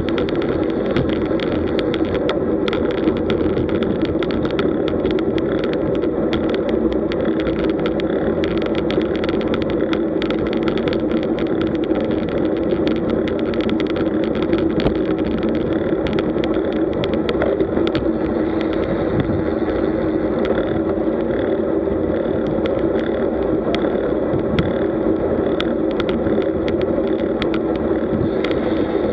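Steady rush of wind and tyre noise on a bike-mounted camera riding a road bike in a group, with frequent small clicks and rattles from the road surface.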